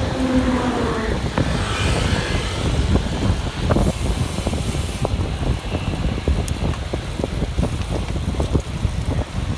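Wind buffeting the microphone while cycling: a steady low rumble with constant crackling, and a brief pitched sound in the first second.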